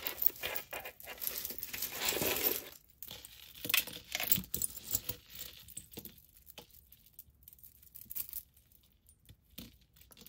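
Costume jewelry clinking and rustling as pieces are handled and set down on a pile. The handling is busiest for the first three seconds or so, then thins to scattered light clicks.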